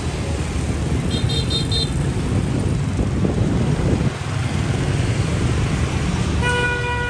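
Busy street traffic, dense motorbikes and a bus, running with a steady engine and tyre rumble. About a second in a horn gives four quick short high beeps, and near the end a vehicle horn sounds a steady held blast.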